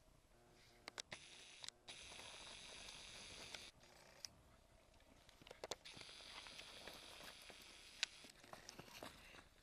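Camcorder zoom motor whirring twice, each a steady high whine of about two and a half seconds that starts and stops abruptly, with faint scattered ticks around it.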